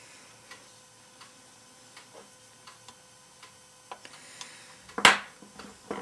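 Faint, evenly spaced ticks, about three every two seconds, while polymer clay is worked around a small round metal cutter on a tabletop. About five seconds in comes one sharp knock, the loudest sound, as of the metal cutter or a fingernail striking it.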